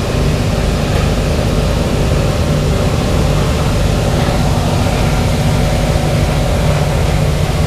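B-17 Flying Fortress 'Memphis Belle' with its Wright Cyclone nine-cylinder radial engines running, a loud, steady, deep multi-engine drone that holds level without rising or falling.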